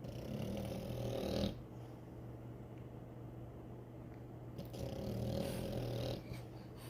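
French bulldog snoring: two long snoring breaths, the first right at the start and the second about four and a half seconds in, with quieter breathing between.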